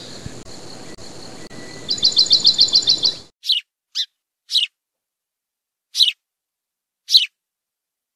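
Small songbird calling: a quick trill of about ten high notes, then single sharp chirps that fall in pitch, roughly one a second.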